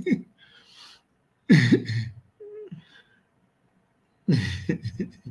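A man's voice making two short nonverbal bursts, one about a second and a half in and one near the end, with a brief faint hum between them.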